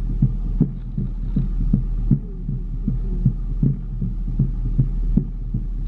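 A drum from a danza procession beating a steady, even rhythm of about two and a half low thumps a second, over a steady low rumble.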